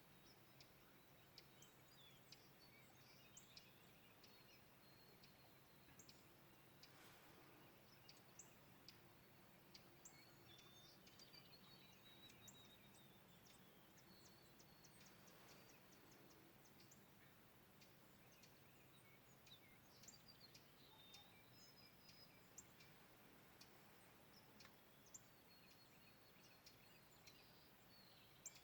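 Faint birdsong: scattered short chirps and calls over a low, steady background hum.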